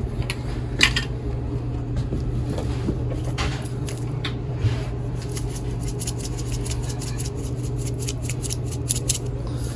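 Salt and pepper being shaken or ground onto beaten eggs: a run of light quick ticks and rattles, scattered at first and coming fast in the last few seconds, over a steady low hum.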